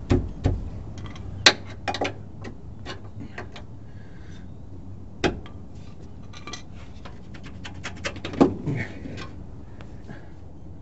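Irregular metal clinks and knocks of hand-worked shock absorber mounting hardware and tools under a motorhome, the sharpest about a second and a half in and another a little after five seconds.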